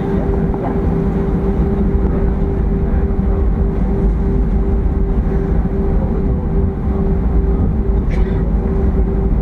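Cabin noise of an Airbus A320-232 taxiing: its IAE V2500 engines running at taxi power, heard from a window seat over the wing as a steady low rumble with a constant humming tone.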